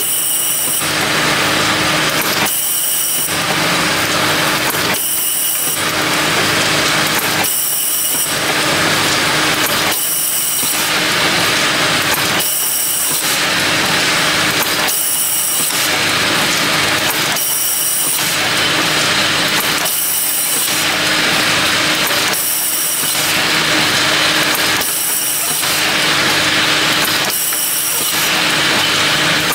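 Automatic rotary filling and capping machine running: a loud, steady mechanical noise that goes through the same cycle about every two and a half seconds as the turntable indexes.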